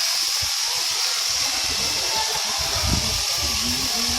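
Electric sheep shears running steadily during shearing, a constant machine buzz with a high hiss over it.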